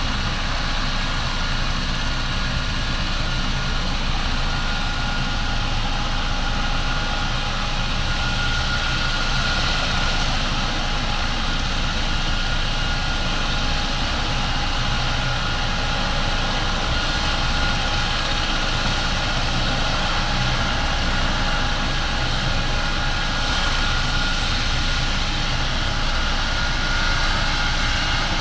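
An engine running steadily at rest: a low rumble under several steady high-pitched whining tones, with no change in speed.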